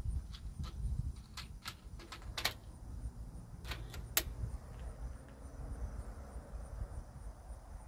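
A run of light, sharp clicks, about ten of them spread unevenly over the first four seconds, over a steady low rumble.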